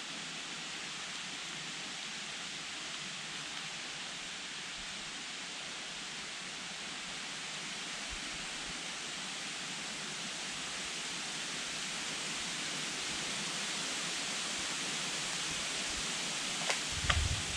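A steady, even outdoor hiss that slowly grows a little louder, with a few sharp clicks and a low thump near the end.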